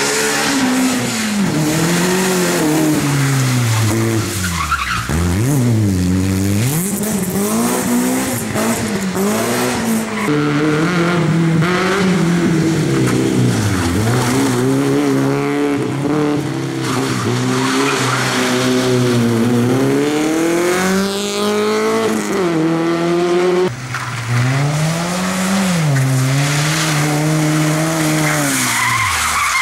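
Small four-cylinder rally hatchbacks (a Suzuki Swift, a Fiat Seicento, a Peugeot 106) driven flat out one after another, their engines revving high and dropping again and again as they change gear and lift off into corners.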